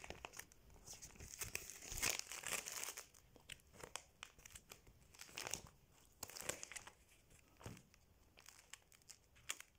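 Clear plastic photo-album sleeves crinkling and rustling as the album pages are handled and turned, in scattered short rustles, the loudest about two to three seconds in.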